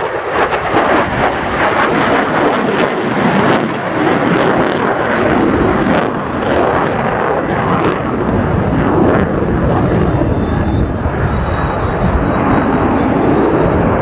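Lockheed Martin F-35A Lightning II's single F135 turbofan running at high power in a display manoeuvre, a loud steady jet roar. Sharp crackling runs through roughly the first half.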